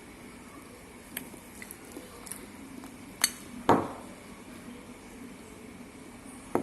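Cutlery clinking against dishes: a handful of separate light clinks, the loudest a duller knock about three and a half seconds in.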